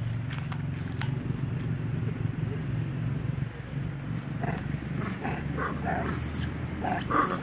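A baby long-tailed macaque crying in a run of short squeaks from about halfway through, breaking into shrill screams near the end. A steady low rumble runs underneath.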